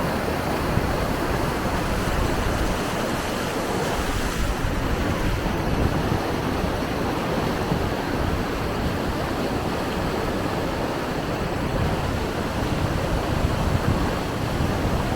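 Waterfall: falling water rushing in a steady, dense noise, with some wind buffeting the microphone.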